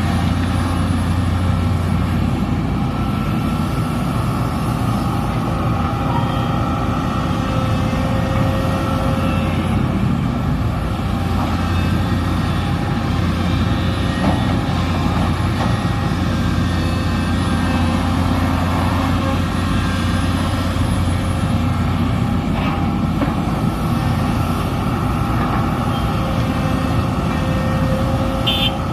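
Heavy diesel construction machinery running steadily under load: a SANY SY330H excavator's engine and hydraulics working, a constant low drone with a steady higher whine over it.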